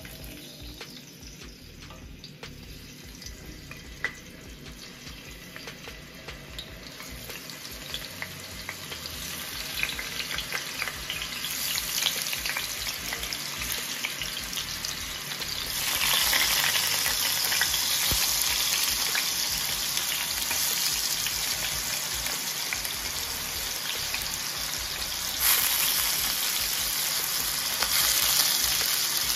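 Thick potato rounds sizzling as they are laid one at a time into hot olive oil in a stainless steel pan to sear. The sizzle builds gradually, with a jump in loudness about halfway through and another near the end as more pieces go in, and a few light clicks of pieces set down.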